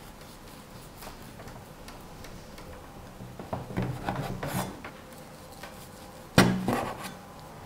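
Chinese cleaver sawing through a soft steamed brown-sugar sponge cake, the blade rubbing faintly in a few strokes, then a single sharp knock on the wooden cutting board about six seconds in, the loudest sound.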